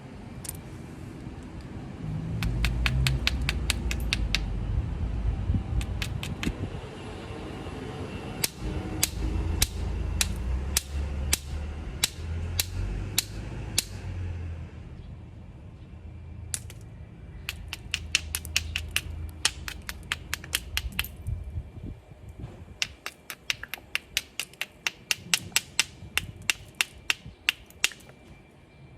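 Obsidian being knapped: runs of sharp, glassy clicks as the stone is struck and flaked, some in quick clusters and some evenly spaced at about two a second. A low rumble sits under the first half and fades out about halfway through.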